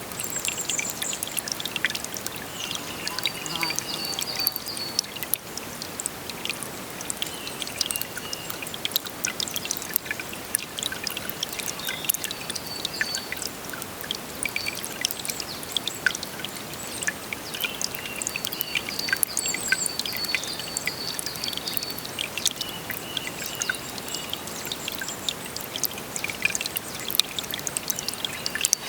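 Running stream water, flowing and splashing steadily. Short high trills repeat over it every few seconds.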